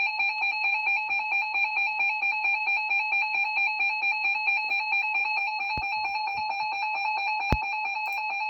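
Emergency Alert System attention tone: a loud electronic alert tone warbling rapidly between two pitches, running steadily before the spoken warning. Two sharp clicks cut through it in its second half.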